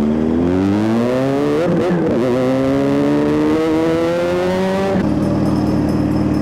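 Motorcycle engine breathing through a newly fitted aftermarket exhaust pipe, accelerating with its pitch climbing, dropping briefly about two seconds in and climbing again. About five seconds in it changes abruptly to a steady, lower engine note.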